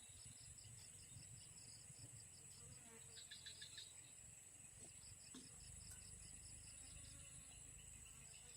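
A faint outdoor insect chorus: a steady high-pitched drone with evenly repeating cricket chirps, a brief burst of extra chirping about three seconds in, over a low rumble.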